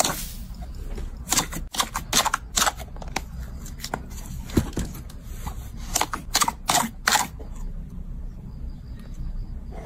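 Slime being squished and pressed by hand, giving irregular sticky clicks and pops over a steady low hum.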